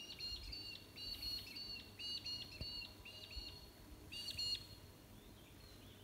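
A bird calling in quick runs of short, high chirps for the first three and a half seconds, then one shorter run about four seconds in.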